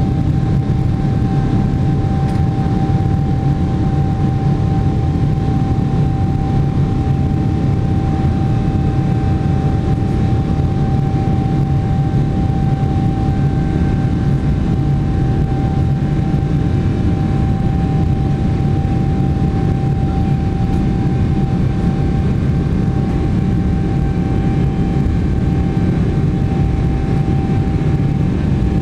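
Large airliner turbofan engine at low taxi power, heard from inside the cabin: a steady low rumble with a constant whine over it.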